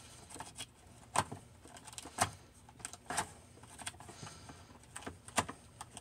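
A small cardboard Pokémon card box being handled and opened with cloth-gloved hands: scattered light crinkles and sharp snaps of cardboard, a few of them louder.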